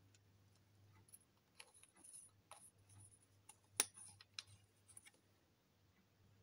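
Faint handling noise of small plastic cosmetic tubes: scattered light clicks and rustles, with one sharper click a little under four seconds in.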